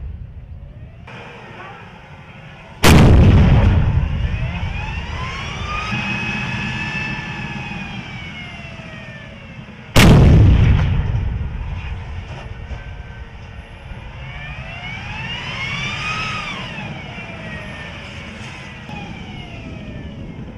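M1A2 Abrams tank's 120 mm main gun firing twice, about seven seconds apart, each shot sharp and followed by a long rumbling echo that fades over several seconds. Between the shots a whine rises and falls in pitch.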